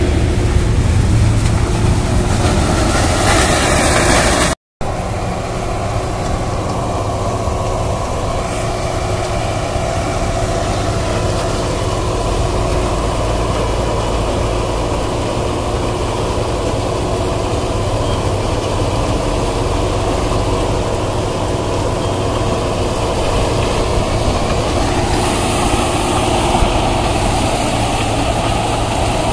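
Heavy diesel machinery running steadily: a Case IH Austoft 4000 sugarcane harvester's Cummins six-cylinder engine working alongside a New Holland 3600 tractor that hauls the cane trolley. The sound drops out for a moment about five seconds in.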